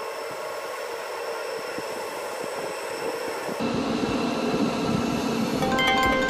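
KTX-Eum electric multiple-unit train running past along the platform as it pulls out, a steady rumble of motors and wheels, played at double speed for the first few seconds before the sound turns fuller and lower. Music comes in near the end.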